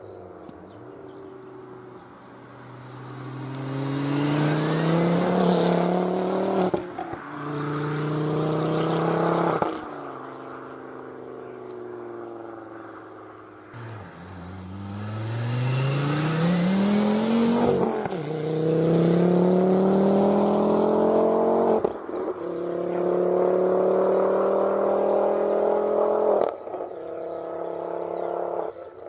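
Ford Focus Mk2's 2.5-litre turbocharged five-cylinder through a 3-inch stainless valved exhaust, accelerating hard on the road twice. Each time the engine note climbs with the revs and dips briefly at each upshift.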